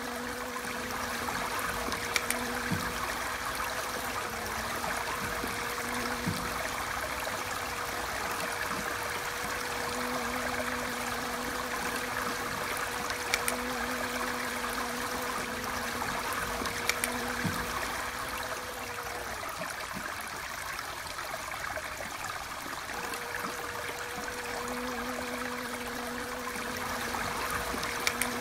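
Even rushing of running water, like a small stream, under a steady buzzing hum and a lower hum that comes and goes every few seconds, fitting honeybees' wingbeats; a few faint clicks.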